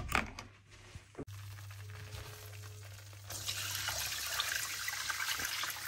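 Sugar water poured into a hot pan of flour roasted in margarine and oil with walnuts, hissing and sizzling as it hits, starting about three seconds in.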